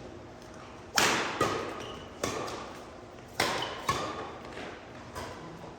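Badminton rackets striking a shuttlecock during a rally: a string of sharp smacks about a second apart, two of them louder than the rest, echoing in a large indoor hall.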